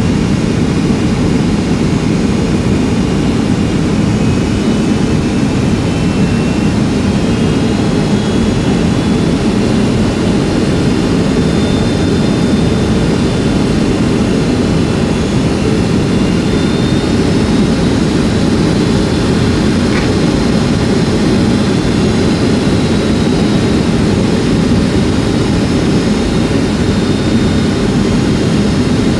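Steady jet engine drone heard inside the cabin of a Boeing 757-200, a low roar with faint high whining tones drifting slightly above it.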